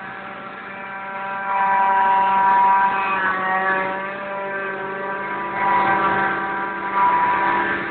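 Tractor engine running steadily, getting louder about a second and a half in. Its pitch drops slightly around three seconds, and it swells again near six and seven seconds.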